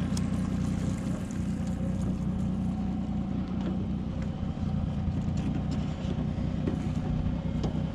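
Small fishing boat's outboard motor running steadily, a low even hum, with a couple of faint knocks from handling gear in the boat.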